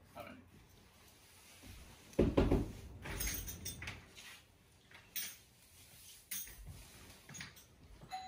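A door being handled: a heavy thump about two seconds in, then scattered lighter knocks and clicks.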